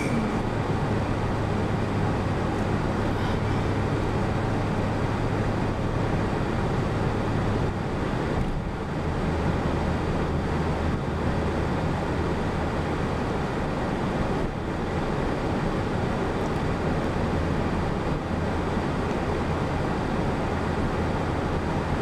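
Steady engine and road noise heard from inside a moving truck's cab. The low engine hum drops in pitch about eight seconds in.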